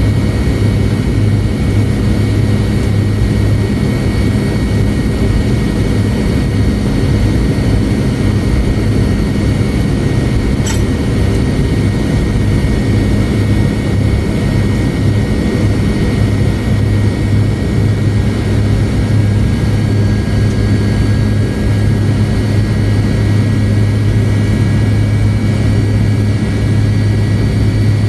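Cabin noise of a McDonnell Douglas MD-88 taxiing, heard from a rear seat near its tail-mounted Pratt & Whitney JT8D turbofans: a steady deep hum with thin high whining tones above it. Another high whine joins about twenty seconds in.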